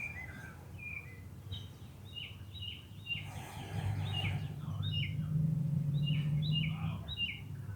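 Small birds chirping: short high chirps repeated a few times a second, with a faint low hum in the middle.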